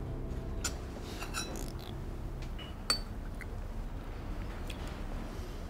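Ceramic coffee cups clinking lightly against saucers in a quiet café, several scattered clinks with the sharpest about three seconds in, over a low steady hum.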